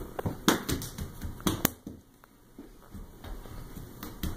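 A few sharp slaps and knocks, the loudest about half a second in and another pair a second later: bare feet running across a hard floor.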